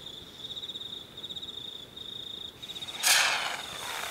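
Crickets chirping steadily; about three seconds in, a lit double happy firecracker gives a sudden loud hissing fizz that dies away over a second or so, sending up smoke rather than going off with a bang.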